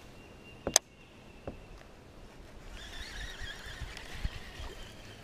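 A baitcasting reel being handled while flipping a Texas rig: one sharp click a little under a second in and a fainter one shortly after, then a stretch of faint high chirping.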